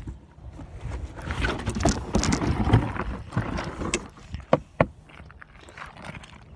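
Footsteps crossing grass and gravel, with rustling and rumbling handling noise from a phone carried while walking. Two sharp clicks come about four and a half seconds in, and it goes quieter after.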